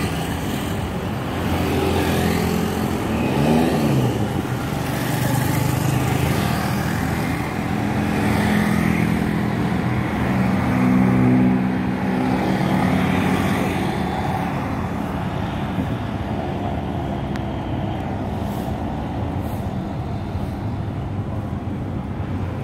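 Road traffic heard from a moving motorbike: engines run with a drone that rises and falls in pitch as vehicles speed up and slow down. A brief rising and falling whine comes about three and a half seconds in.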